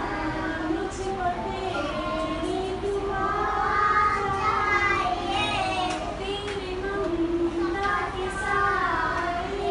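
A group of young children singing an action song together, with a woman's voice singing along.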